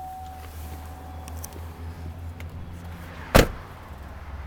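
The driver's door of a 2004 Chevrolet Silverado 1500 regular cab slams shut once, sharply, about three and a half seconds in, over the low steady hum of its idling engine.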